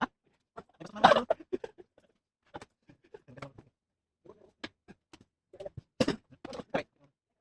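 Irregular clicks, taps and knocks of laptop parts and tools being handled, with a cluster about a second in and the sharpest knocks near the end.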